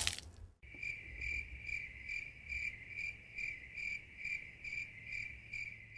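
A cricket chirping steadily, a little over two chirps a second, starting about half a second in as a louder noise dies away.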